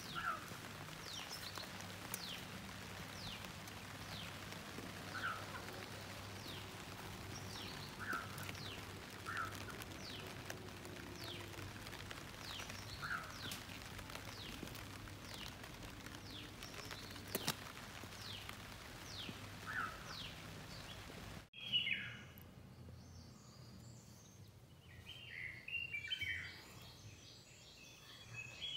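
Birds chirping outdoors: many short, quick downward-sliding chirps repeated every second or so over a steady low background rumble. About two-thirds of the way through, the sound cuts off abruptly and gives way to a quieter mix of higher chirping notes.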